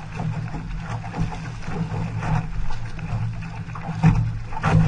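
Water rushing and splashing along the hull and ama of a racing outrigger canoe under way, over a steady low rumble, with brief splashes from paddle strokes.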